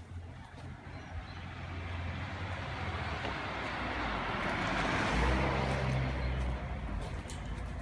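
A car passing by: its road noise swells to a peak about five seconds in and then fades away.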